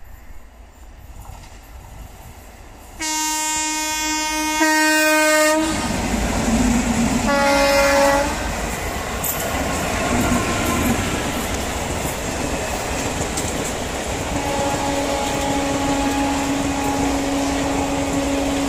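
Indian Railways WAP-4 electric locomotive passing at speed: a long loud horn blast about three seconds in and a second, shorter blast a couple of seconds later. Then a steady rumble of coaches with wheels clacking over the rail joints. A fainter, steady horn tone sounds in the last few seconds.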